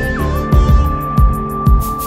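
Background electronic music with a steady beat of deep kick drums under a held, whistle-like lead note that slides down once and then holds.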